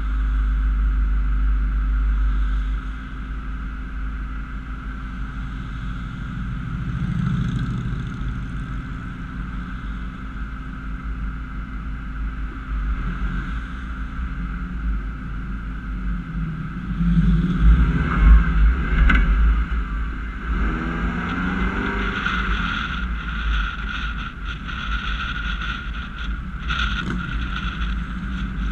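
2010 Honda CR-V driving along a road: steady engine and tyre rumble with road noise. It grows louder for a couple of seconds about two-thirds of the way through.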